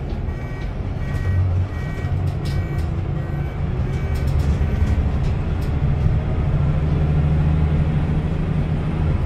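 Engine and road noise heard from inside a moving vehicle: a steady low hum that grows a little louder from about halfway through.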